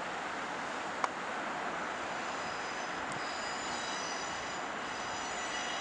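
South West Trains diesel multiple unit running slowly over junction pointwork: a steady engine and rail noise, with a high whine coming in about three seconds in and a single sharp click about a second in.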